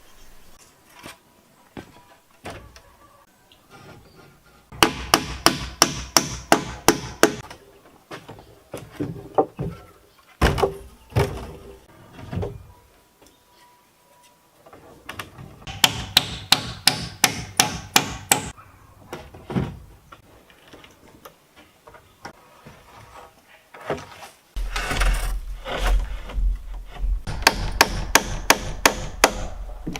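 Hammer striking wood in three quick runs of about three to four blows a second, with scattered single knocks in between and a low rumble under the last run.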